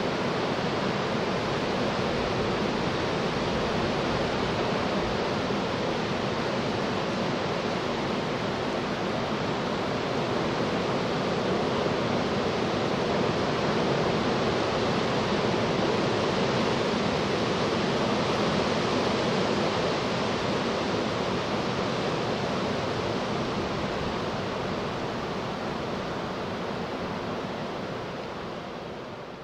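Antonov An-74 jet's two turbofan engines running as it taxis: a steady rushing jet noise with a faint steady hum underneath, fading out near the end.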